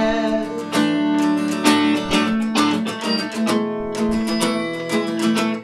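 Acoustic guitar being strummed in a steady rhythm, each stroke ringing out a full chord. The strumming stops suddenly near the end.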